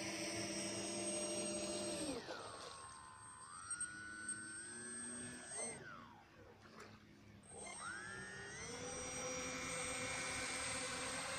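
The propeller motor of a radio-controlled wing-in-ground-effect craft, whining. Its pitch drops sharply about two seconds in as it throttles back, then wavers, quietest around six to seven seconds. It climbs again near nine seconds and holds steady at speed.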